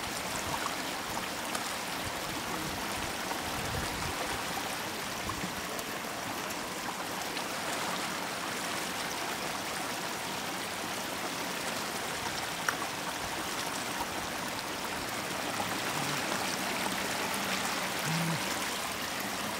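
Fast, shallow floodwater rushing and splashing steadily over a rocky bed and around a wicker basket held in the current. A single brief click about two-thirds of the way through.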